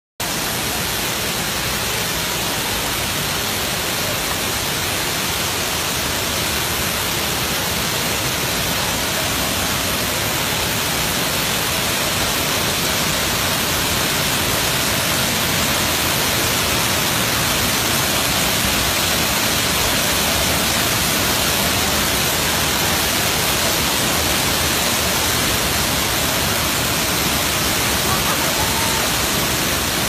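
Wide waterfall in heavy flow, several cascades pouring over a rock ledge: a loud, steady rush of water.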